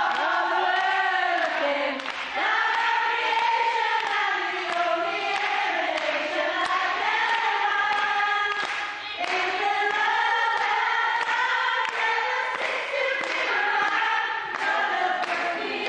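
A woman singing unaccompanied into a microphone, holding long notes that bend up and down, with a couple of short breaths between phrases.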